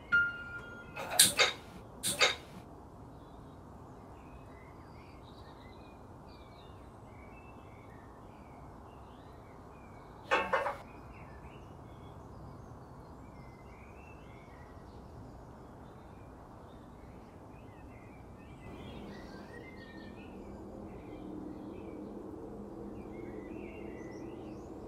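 Two sharp strikes about a second apart, then a third about ten seconds in, as a single-burner gas stove is lit, over a steady low hiss with small birds chirping throughout. A low steady hum comes in near the end.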